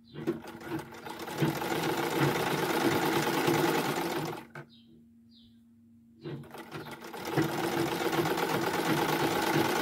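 Gloria sewing machine stitching at a fast, even pace, stopping for about two seconds near the middle, then starting up again.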